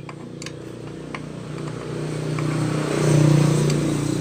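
A passing motor vehicle's engine, growing louder to a peak about three seconds in and then easing off, with a few light metallic clicks near the start.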